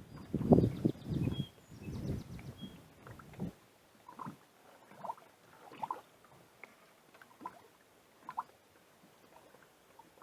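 Water splashing and sloshing around a small fishing boat, loudest in the first three seconds, then faint scattered small laps.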